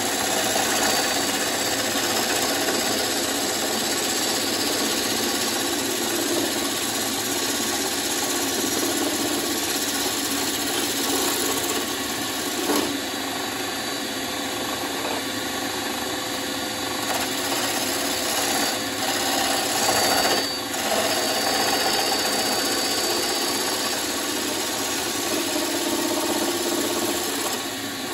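Wood lathe spinning a bowl blank while a turning gouge cuts the wood: a steady, loud scraping hiss with a few brief dips.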